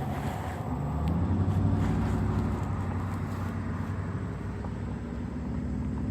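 Road traffic: a vehicle's engine passing, swelling about a second in and then easing off over a steady traffic rumble.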